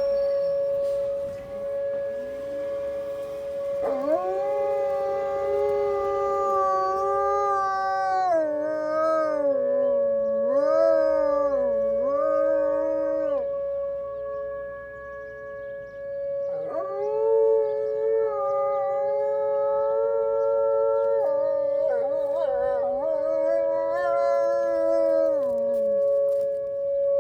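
Wolfdog howling: two long howls, each wavering and dipping in pitch, the first starting about four seconds in and the second a few seconds after the first ends. A steady ringing tone holds underneath throughout.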